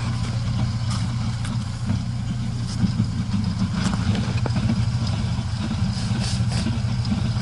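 IZh 21251 Kombi's engine running steadily in gear, driving the jacked-up rear wheels, with a rumbling and light irregular knocking from the rear axle. The owner suspects the rear axle's differential (final drive) is worn.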